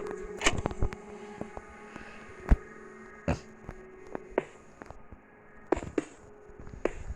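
Scattered sharp clicks and knocks at irregular intervals, the loudest about two and a half seconds in, over a faint steady hum.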